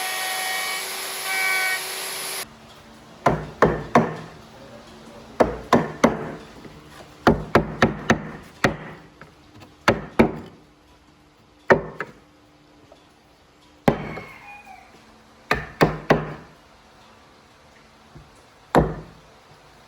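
Hammer blows on wood, about twenty sharp knocks in uneven clusters of one to four, each ringing briefly. Before them a power tool runs with a steady whine and cuts off suddenly about two and a half seconds in.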